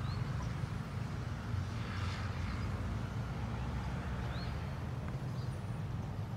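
Steady low outdoor rumble with a few faint, short, high chirps scattered through it.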